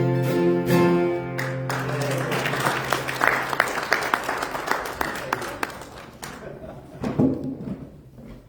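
A song ends on a held chord about a second and a half in, and the congregation applauds, the clapping dying away over the last couple of seconds.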